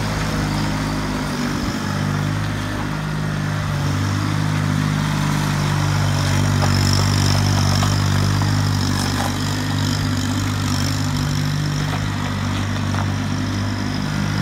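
McCormick G51R compact tractor's engine running at a steady, even speed as the tractor drives slowly around.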